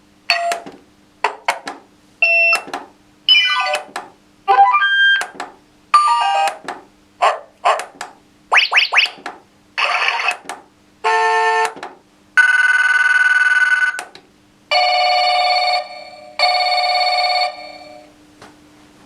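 EchoChime300 doorbell receiver stepping through its built-in melodies as its melody selector is pressed: a string of short electronic chimes and tunes, each cut off as the next one is selected. Near the end come longer ringing tones, the last a telephone-style ring in two bursts, which shows the telephone sound has been selected.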